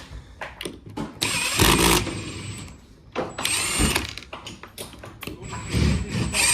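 Handheld power drill running in three short bursts, its whine rising and falling with each trigger pull.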